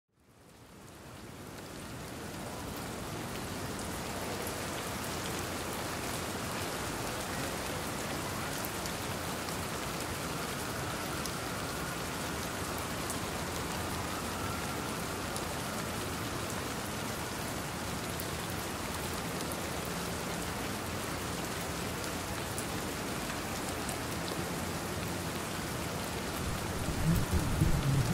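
Steady rain pattering, fading in over the first couple of seconds. A low rumble swells in near the end.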